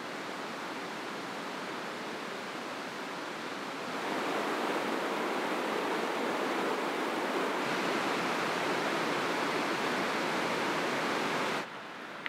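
Fast mountain river rushing over boulders: a steady rush of water that steps up louder about four seconds in and drops away abruptly near the end.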